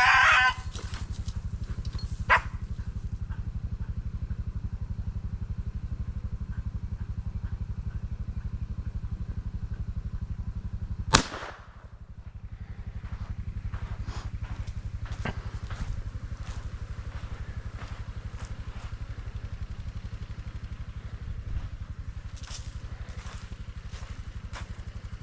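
A vehicle engine idling with a steady, even low rumble. A single sharp crack cuts in about 11 seconds in.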